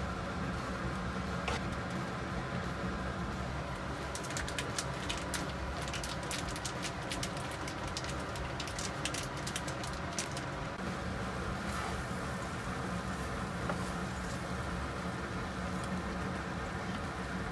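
Sauce sizzling and bubbling in a frying pan over a steady low hum. From about four to eleven seconds in comes a run of sharp clicks and taps as ingredients go into the pan and a wooden spatula stirs them.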